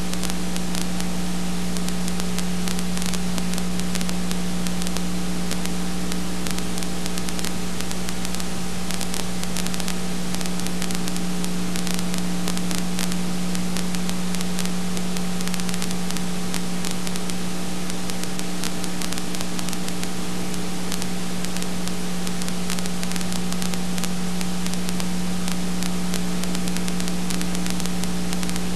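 Steady hiss with a strong low electrical hum and light crackle running under it, with no speech or music.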